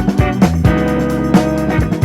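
Background music: a guitar-led band track with drums keeping a steady beat.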